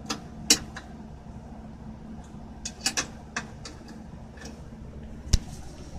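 A few scattered sharp clicks and light metallic taps: a hand wrench knocking against a steel hitch bolt as it is tried for size.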